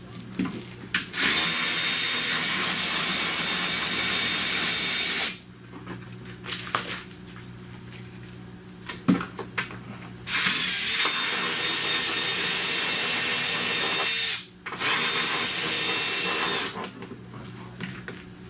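A power tool runs in three bursts, about four, four and two seconds long, as it backs out the screws holding the car's plastic under-panel. Small clicks and handling noises come between the bursts.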